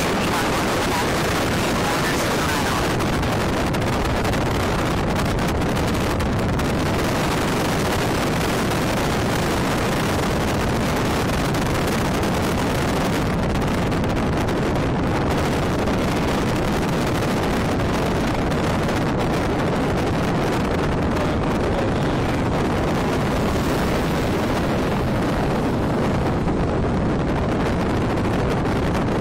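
Steady wind rushing over a phone's microphone at an open car window, with the car's road noise beneath.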